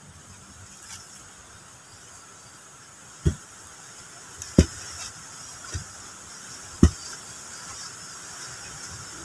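Four dull thuds as a wooden post is driven down into a hole in the soil, the second and last the heaviest.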